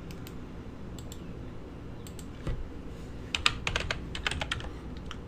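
Typing on a computer keyboard. There are a few scattered clicks at first, then a quick run of keystrokes from about three seconds in, over a low steady hum.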